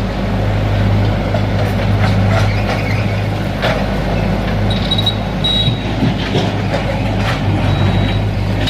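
A large engine running steadily, a constant deep hum with a faint high whine coming and going about halfway through.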